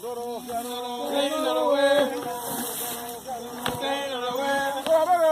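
Rice harvesters chanting a work song, men's voices singing held, bending notes.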